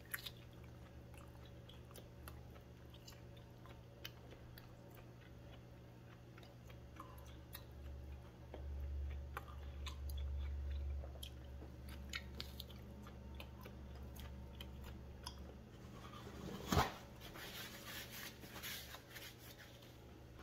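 Faint chewing and biting of raw skirt steak, with many small wet mouth clicks as the meat is torn and chewed. A single sharp thump about three-quarters of the way through is the loudest sound.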